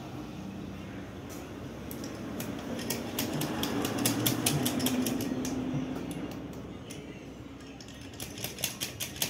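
Metal engine parts and tools clicking and clinking as a motorcycle engine's cylinder-head parts are fitted by hand: quick light taps in clusters, busiest in the middle and again near the end, over a low steady hum.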